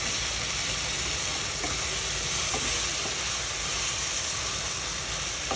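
Tadka of onion, tomato, garlic and spices sizzling steadily in a metal kadhai, stirred with a spatula.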